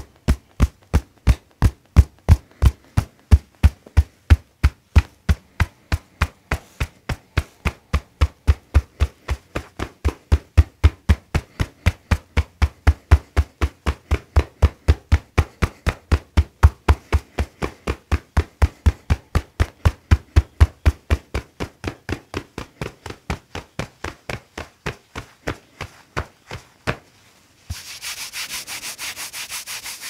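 Rhythmic percussion massage by hand on a person's back: fists striking the back through a shirt in steady thumps, about three a second, that stop about 27 seconds in. Near the end, hands rub briskly over the back through the shirt.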